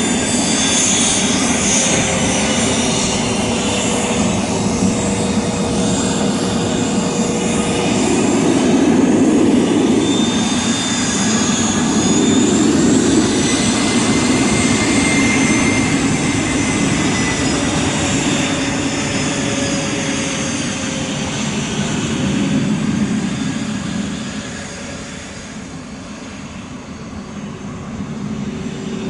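Cessna 525B Citation CJ3 business jet taxiing, its twin turbofan engines running at low power with a whine of several high tones that slowly shift in pitch over a steady low noise. It grows quieter near the end.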